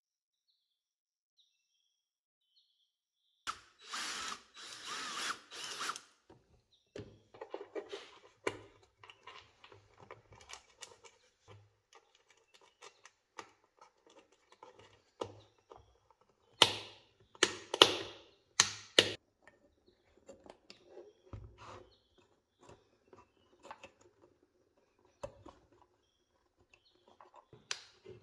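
Hand work on small electronic parts and a wooden speaker cabinet: scattered clicks and knocks as parts and tools are handled. About four seconds in there are a few seconds of louder, hissy noise, and there is a cluster of sharp clicks a little past the middle.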